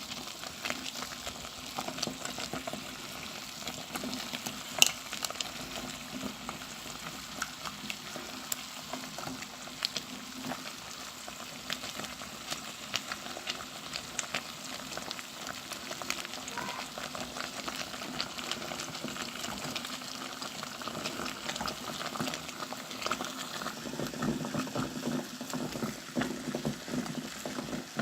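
Olive oil and lavender heating in a saucepan set in a boiling water bath, sizzling and bubbling steadily, with a spoon clicking against the pan as the lavender is stirred and crushed; one sharper clack about five seconds in.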